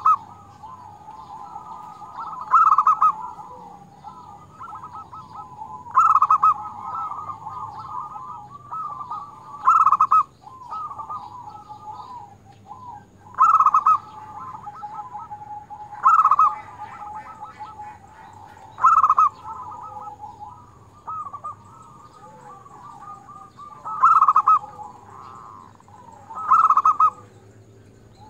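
Zebra dove (perkutut) singing: it repeats its cooing phrase roughly every three seconds, about nine times, each phrase ending in a loud, clear 'kung', with softer warbling coos between.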